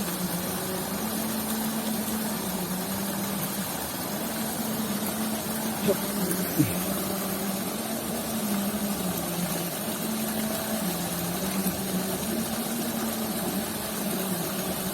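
A small engine running steadily, a constant low hum that shifts pitch slightly now and then, over a steady background rush.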